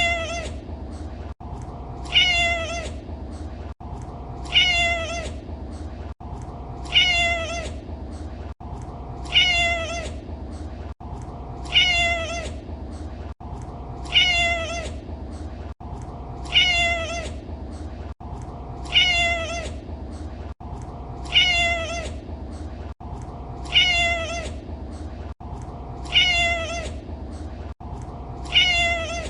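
Domestic cat meowing: the same short, falling meow repeats at an even pace about every two and a half seconds, a looped recording. A steady low rumble runs underneath.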